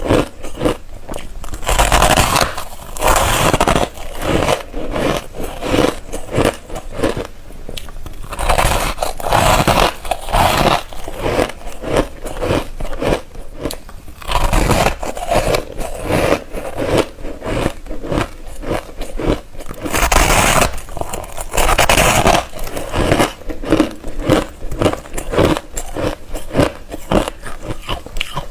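A person biting and chewing ice close to the microphone: repeated crunches and crackling snaps with squeaky scraping, in bursts every second or two.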